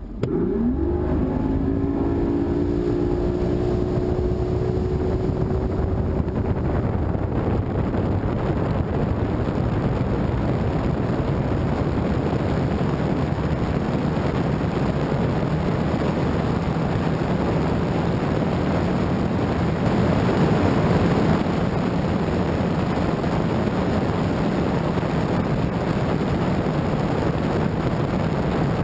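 Bass boat's outboard motor throttling up with a rising whine in the first second as the boat picks up speed, then running steadily at speed under a loud, even rush of wind and water.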